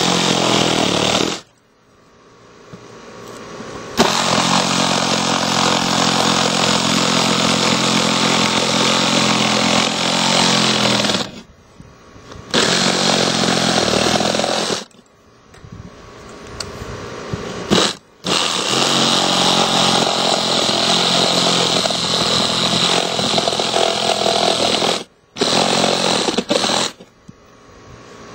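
Reciprocating saw cutting an opening through house siding, running in about five bursts separated by short stops as the blade is repositioned.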